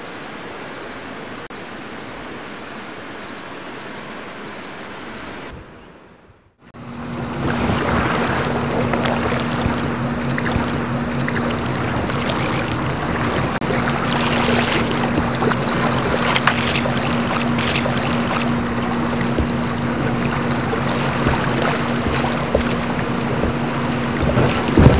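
River water rushing and splashing around a kayak, with wind on the microphone, heard through a camera in a waterproof housing. A steady hiss cuts out briefly about six seconds in, then comes back louder and choppier with a steady low hum underneath.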